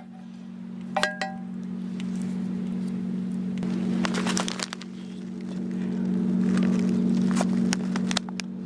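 Two bright metallic clinks ring out like small chimes, one right at the start and one about a second in, with scattered light clicks after them. Underneath runs a steady low hum that swells and then stops near the end.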